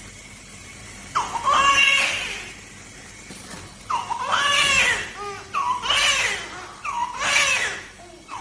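Newborn baby crying in about four loud wails, the first starting about a second in, with short gasping pauses between them.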